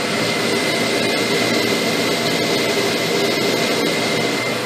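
Steady roar of lab equipment around a running ICP-AES spectrometer, with a thin steady high whine over it. The microphone brushes against shirt fabric with a few faint clicks.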